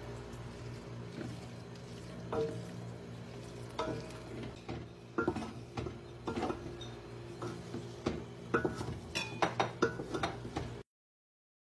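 A spoon stirring soaked crushed wheat (jareesh) in a cooking pot: irregular scrapes and clinks against the pot, coming thicker near the end, over a steady low hum. The sound cuts off suddenly about a second before the end.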